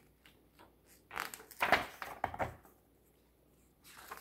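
A page of a picture book being turned by hand: paper rustling and swishing, loudest about one and a half seconds in, with a few softer rustles near the end.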